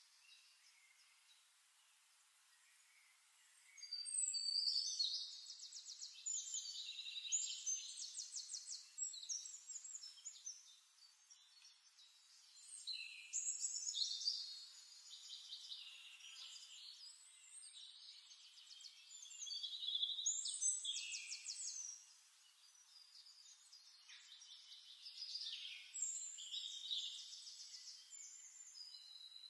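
A small songbird singing high, fast trills and warbles in phrases several seconds long, with short pauses between them.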